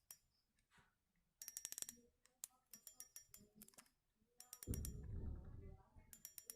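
Small clicks from a spinning fishing reel being handled, with a quick run of rapid clicks about a second and a half in and a louder low rumble of handling near the end.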